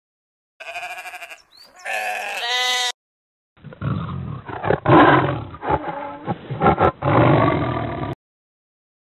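Sheep bleating twice, then a tiger roaring with rumbling growls for about four and a half seconds. Both are sound-effect recordings played back from a phone app.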